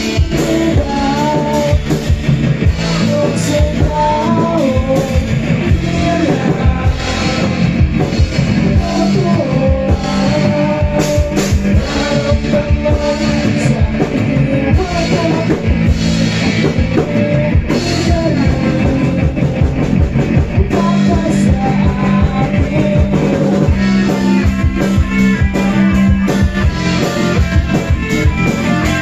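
Live rock band playing: two electric guitars, a bass guitar and a drum kit.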